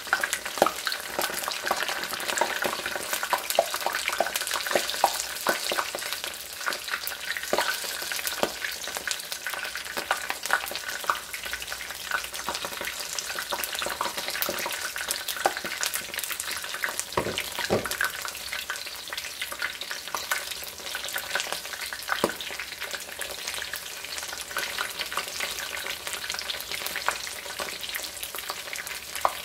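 Batter-coated dandelion flowers deep-frying in hot oil: a steady sizzle with frequent crackling pops, and a few knocks of metal tongs in the pan.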